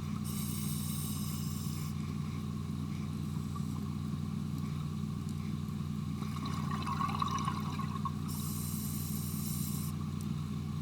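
Underwater sound of a scuba diver breathing through a regulator: two bursts of exhaled bubbles about eight seconds apart, each lasting over a second, over a steady low drone.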